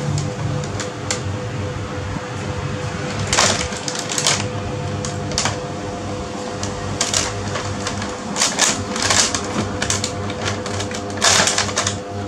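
Clear plastic bag crinkling in irregular bursts as a kitten moves about inside it.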